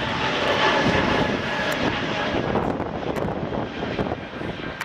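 Airliner's engines passing close by: a loud, dense rushing noise with a faint steady high whine, the upper part easing off about halfway through.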